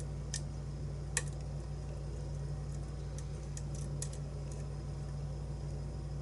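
Lock picks working the pins inside a challenge lock: a few scattered small metal clicks and ticks, the sharpest about a second in and several more around three to four seconds in, over a steady low hum.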